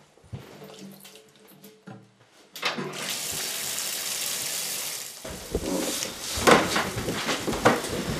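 Water from a tap starts running about two and a half seconds in and flows steadily for a few seconds. It then turns to louder, uneven splashing.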